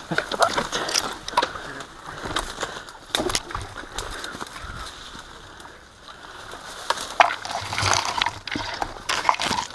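Leaves and branches rustling and twigs cracking as someone pushes on foot through dense brush, with irregular crunching steps on rubble and dry litter.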